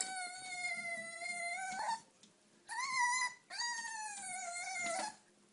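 Puppy whining: three long, high-pitched whines in a row, the middle one shorter and higher.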